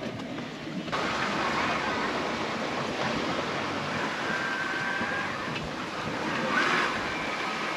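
Strong wind and sea rushing past a small sailboat in about 25 knots of wind: a steady rush of noise that sets in about a second in.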